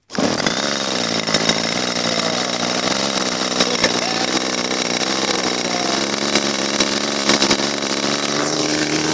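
Glow-plug RC airplane engine running on petrol instead of glow fuel, holding a steady note on the ground with its propeller spinning.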